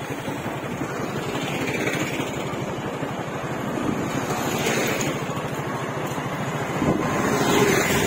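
Engine of the vehicle carrying the recorder running at a steady road speed, with its low pulsing engine note under road and wind noise, getting a little louder near the end.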